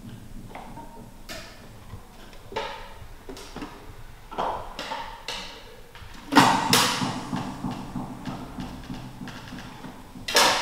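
Waste soundscape installation: a string of separate knocks, scrapes and rattles, roughly one a second. A loud clatter comes about six and a half seconds in and another sharp one near the end.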